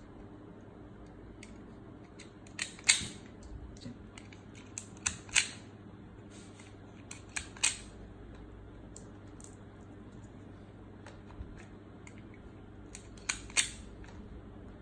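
Hand tool snipping jumper wire: sharp clicks, mostly in close pairs a few seconds apart, over a faint steady low hum.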